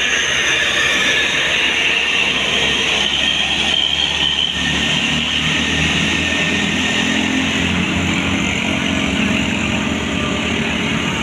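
A large tour bus passing close by, with steady engine and road noise. A deeper engine note comes in about halfway through as the bus draws nearer.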